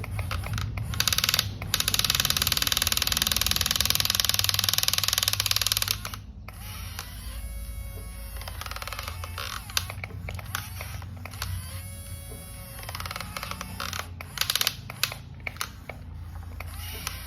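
Toy construction vehicle's small electric motor and plastic gears whirring: loud with a fast ticking buzz for about four seconds, then quieter, with whines that rise and fall several times.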